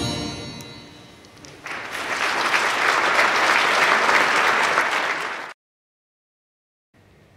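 Orchestral dance music dies away, then an audience applauds for about four seconds before the sound cuts off suddenly into silence; faint room sound returns near the end.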